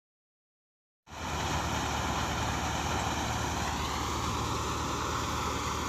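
An engine running steadily at an even speed, starting abruptly about a second in.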